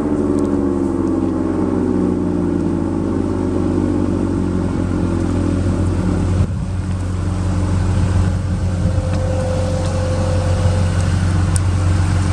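Sentry 16V1T-B rotating siren winding down at the end of its signal, its tone sliding steadily lower and fading out over the first few seconds. Under it, a work vehicle's engine idles with a steady low hum.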